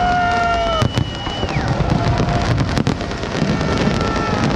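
Large fireworks display bursting and crackling continuously, with several sharp bangs about a second in and again around three seconds in. Long held whistle-like tones sound over it near the start and slide down and stop about a second and a half in.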